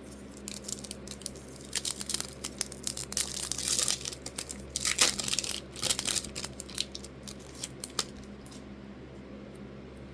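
A foil trading-card pack being torn open and its wrapper crinkled, in irregular crackly bursts that are loudest in the middle and die away near the end.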